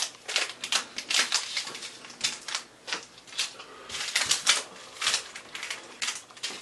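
Small foil seed packets crinkling and clicking as they are handled and set down on a wooden desk: a quick, irregular run of crinkles and light taps.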